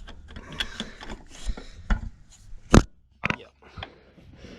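Hand tools clicking and knocking on metal while a tight bolt on the front of the engine is worked on, with one sharp metallic knock almost three seconds in.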